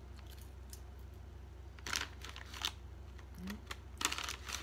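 Plastic potato chip bag crinkling and rustling as chips are taken out, in a few short crackly bursts, the busiest near the end.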